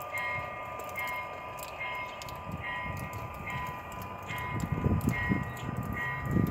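O gauge model train cars rolling along the track with light clicks and a low rumble that grows louder over the last couple of seconds. Through it an electronic bell dings steadily, a little faster than once a second.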